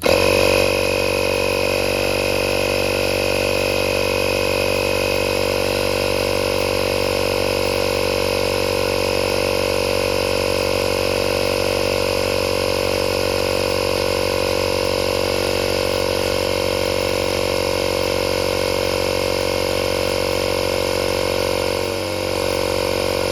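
The Tesla Tire Repair Kit's 12-volt electric air compressor starts abruptly and runs steadily, pumping air into a car tyre.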